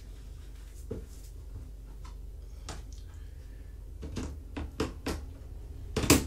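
Knocks and clicks of a pet carrier being handled while a kitten is loaded into it, a handful of separate clacks building to the loudest one near the end, as the carrier is shut.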